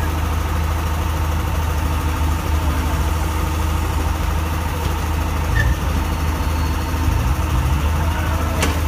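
Engine idling steadily with a low rumble, and a sharp click near the end.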